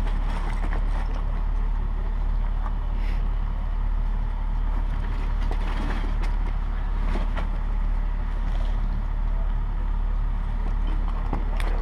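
Steady low rumble of a vehicle engine idling, with faint scattered clicks and rustles of hands handling tape and cord close by.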